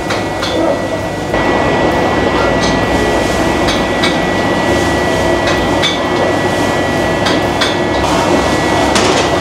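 Hokkien mee being fried in a wok: a steady gas-burner roar that gets louder about a second in, with irregular metal clanks of the spatula against the wok.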